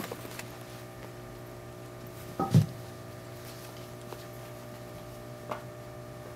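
Two cats wrestling: faint scuffles and a few light clicks, with one short, loud burst about two and a half seconds in. A steady low hum runs underneath.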